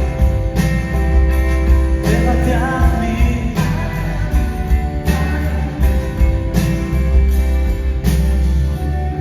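Rock band playing the song live, with bass, pitched instruments and strong drum accents about every second and a half.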